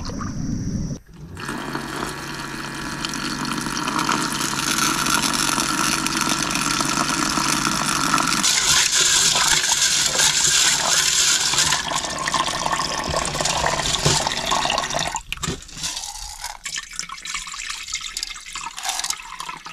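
Running water rushing and splashing steadily, growing brighter and stronger for a few seconds partway through, then thinning out and breaking up near the end.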